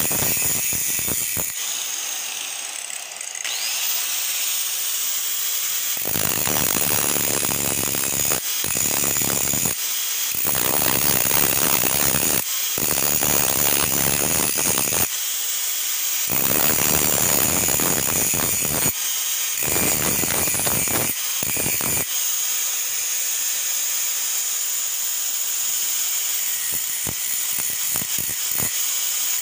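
Handheld electric angle grinder running at speed, its abrasive disc grinding the steel of a knife blank cut from a motorcycle brake disc. Over the motor's steady high whine, the harsh grinding noise comes and goes in repeated stretches of one to three seconds through the middle, as the disc is pressed on and lifted.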